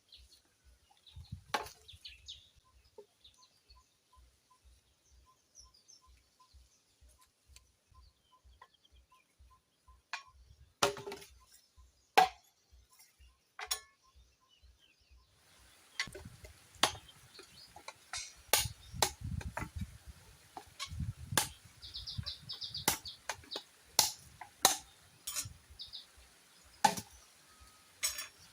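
Irregular sharp knocks of a blade chopping wood: a few spaced strikes at first, then frequent strikes from about halfway.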